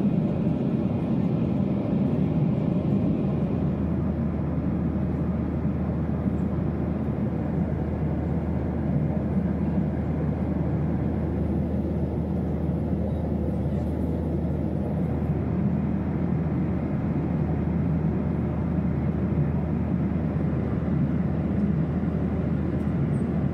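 Steady cabin noise inside a Boeing 737-800 airliner in flight: the constant rush of the CFM56 jet engines and airflow past the fuselage, with a low steady hum that comes in a few seconds in.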